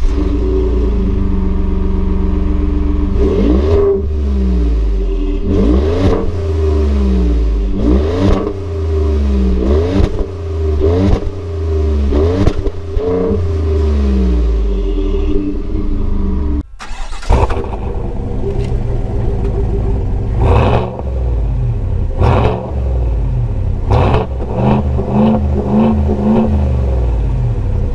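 Two pickup engines revved in turn at a standstill. First the Ford F-150 PowerBoost's 3.5 L twin-turbo V6 idles, then is blipped about once a second many times over. After a sudden cut, the GMC Sierra's 6.2 L V8 idles and is revved a few times, more widely spaced.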